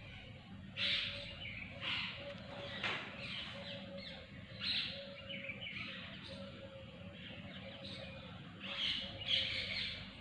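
Birds chirping in the background: a string of short scratchy chirps, with the loudest pair near the end.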